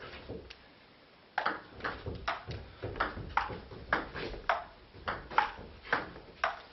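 Table tennis rally: the celluloid ball clicking off bats and table in a quick, even rhythm, about two to three hits a second, starting about a second and a half in after a short pause for the serve.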